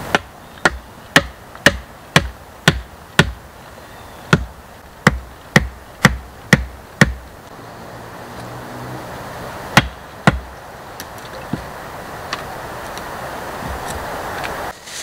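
Wood being chopped with a hand blade: a run of about a dozen sharp strikes, roughly two a second, then a pause and two more strikes.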